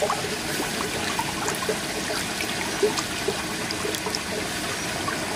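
Water trickling steadily in a koi pond, with many small splashes and ticks as koi crowd at the surface around a hand dipped in the water.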